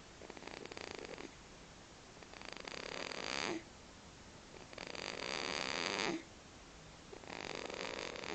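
Baby snoring: about three long, raspy breaths, one every two and a half seconds or so, each growing louder and then cutting off abruptly.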